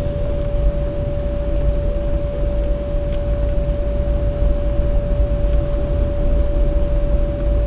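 Steady low rumble of engine and road noise heard inside a moving car, with a thin constant tone holding one pitch throughout.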